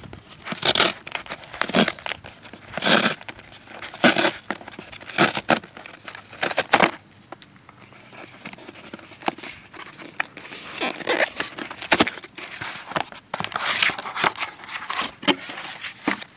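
Corrugated cardboard mailer box being ripped open along its pull tear strip in short tearing pulls, roughly one a second, then the cardboard flaps and paper inside rustling and crinkling as the box is opened.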